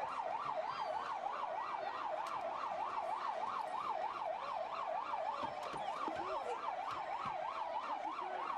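Emergency-vehicle siren in fast yelp mode, rising and falling about four times a second, over a background of street noise.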